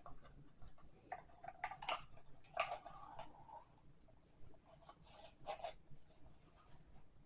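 Faint handling noises: scattered light rustles and small clicks as a piece of twine and small lidded tea containers are handled.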